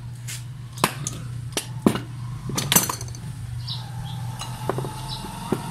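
Sharp metallic clinks and knocks of a car starter motor being taken apart by hand, with about eight separate strikes spread irregularly, over a steady low hum.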